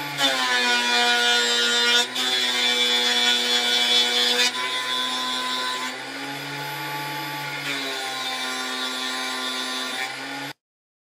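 Makita M3600 router motor running at speed on the router table, with a harsh cutting noise over its whine: the bit cutting wood. It is loudest for the first four and a half seconds, with a short dip about two seconds in, then runs more quietly.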